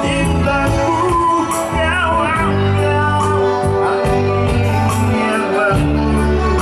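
Music with a singing voice over held bass notes, playing steadily.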